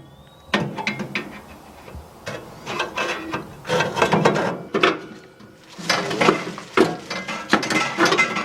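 Metal barbecue parts clattering and knocking as they are set into a gas grill's firebox: a rapid series of clicks and clanks, busiest in the second half.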